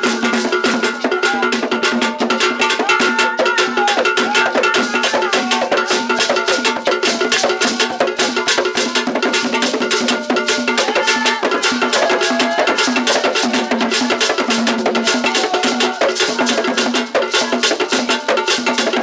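Traditional Ghanaian drum ensemble playing a fast, dense rhythm of drum strokes with a sharp clicking percussion part over it.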